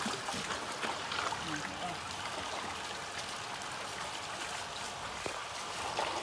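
Water from a hose running steadily over a wet puppy and splashing into a metal basin of water.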